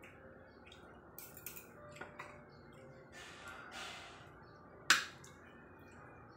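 Spoon and fork clinking and scraping on a plate: a few light clicks and a scrape, then one sharp, loud clink about five seconds in.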